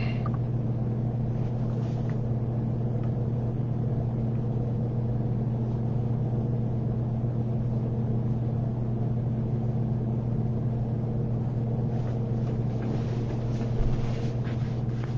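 A steady low hum holding one pitch, with a few faint clicks or rustles about twelve to fourteen seconds in.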